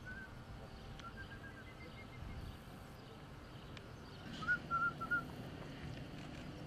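A bird chirping in short runs of quick high notes, loudest in a run of four or five notes about halfway through, over a low outdoor background hum.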